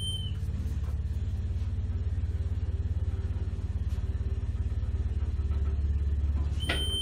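Elevator car travelling upward: a steady low hum and rumble of the ride, getting slightly louder toward the end. A short, high, whistle-like floor-passing chime sounds right at the start and again near the end.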